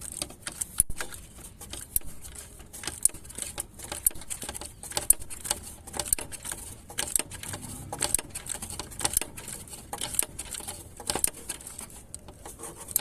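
Socket ratchet and metal hand tools clicking irregularly while the alternator bolts are tightened: a run of sharp, uneven metallic clicks and taps.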